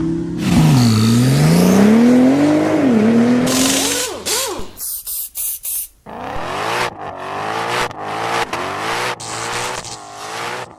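Car engine revving hard, its pitch dropping and climbing again, with a rushing hiss over it in the first few seconds. This is followed by a series of short rising and falling revs.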